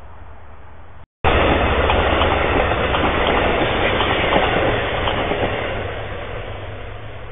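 Faint hiss of a trail camera's microphone, then, after a cut, an Amtrak passenger train's stainless-steel cars passing close by: a loud rush of wheels clacking over the rails that fades as the end of the train goes by.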